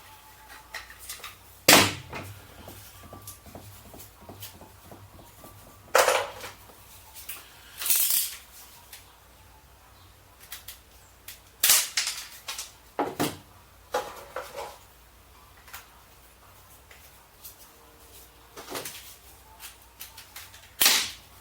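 Sharp clicks and knocks at irregular intervals, about a dozen, as tools and a tube of glue or sealant are handled and worked.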